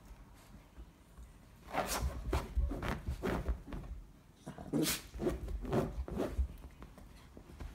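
American hairless terrier giving short play vocalizations in two quick clusters, about five each, mixed with scuffling in a fabric pet bed as it wrestles on its back.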